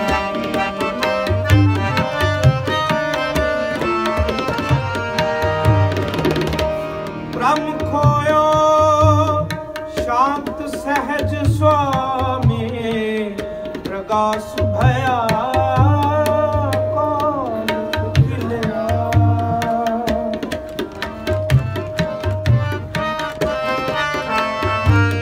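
Tabla playing a steady rhythmic accompaniment with repeated low bass-drum strokes, under a sustained drone and a melody that slides up and down in pitch.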